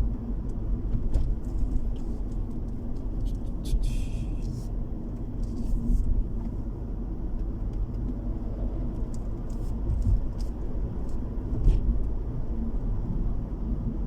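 Steady low road and engine rumble inside a moving car, with a few small clicks and rattles and a brief hiss about four seconds in.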